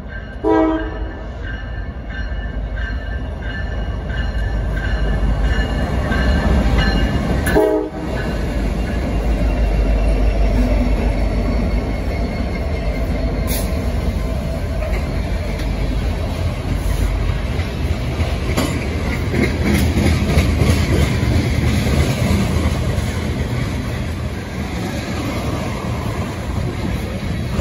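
Norfolk Southern freight train passing close by. Over the first several seconds the horn sounds as the diesel locomotives come up and go past with a heavy low engine rumble, then a string of loaded tank cars rolls by with a steady roar of wheels on rail.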